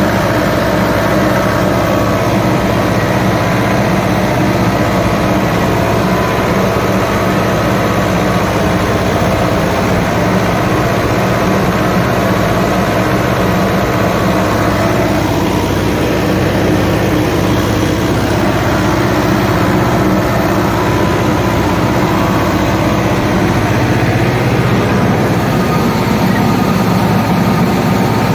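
Tractor diesel engine running steadily while pulling a tillage implement through corn stubble, heard from the seat just behind the exhaust stack.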